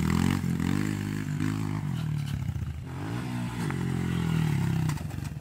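Small dirt bike engine revving hard on a dirt track, its pitch rising and falling several times as the throttle is opened and closed and it shifts gear, then holding higher and steadier near the end.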